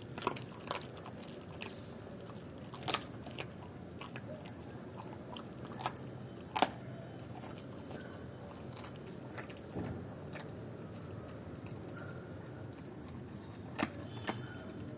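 German Shepherd chewing raw chicken feet, with scattered sharp crunches of bone, the loudest about six and a half seconds in.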